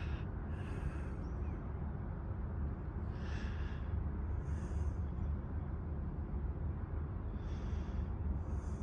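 A few soft breaths or exhales close to the microphone, short and spaced irregularly, over a steady low outdoor rumble.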